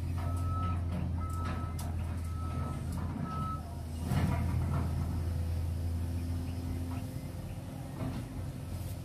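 Cat 345GC hydraulic excavator's diesel engine running steadily while its travel alarm beeps about once a second, stopping about three and a half seconds in. About four seconds in, a louder scraping clatter follows as the bucket meets the coal.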